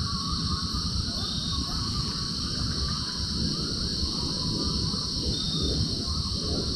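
A pack of coyotes howling and yipping together, many rising and falling wails overlapping, over a steady chorus of night insects. Wind rumbles on the microphone underneath.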